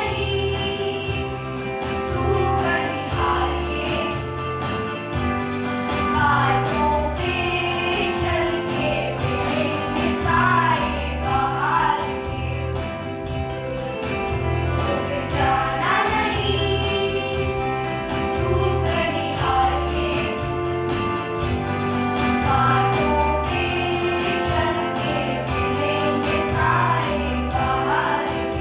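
A song with voices singing over held instrumental chords, a repeating bass line and a steady beat.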